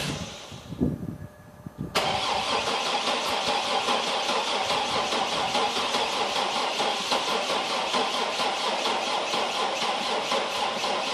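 Chevy Trailblazer V8 being cranked over by its starter in a hard cold start, cutting in suddenly about two seconds in and then grinding on steadily in an even rhythm without the engine catching: the engine has dead cylinders.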